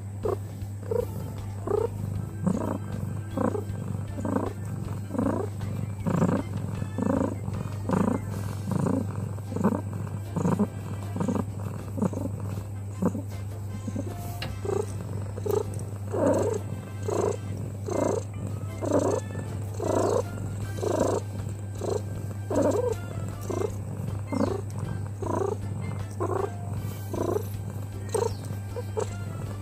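Domestic cat, an American Curl, purring steadily while being stroked on the head, with background music.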